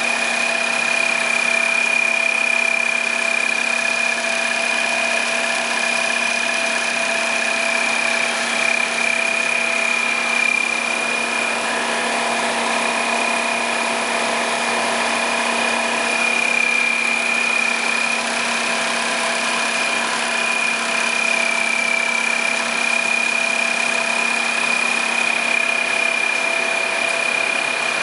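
YFM-302NCA computer-controlled, step-motor-driven high-speed zipper sewing machine running steadily in automatic mode, stitching nylon coil teeth onto zipper tape. It makes a continuous mechanical running noise with a steady high-pitched whine over it.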